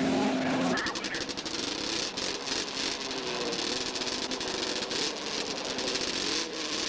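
A loud snowmobile engine note cuts off about a second in, leaving snowmobile engines running at a distance under a steady hiss with crackle.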